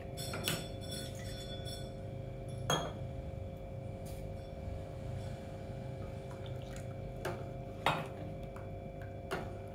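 Steel spoon clinking against a steel saucepan a few times, with sharp, spread-out clinks, while stirring thin wheat-flour porridge. A steady low hum runs beneath.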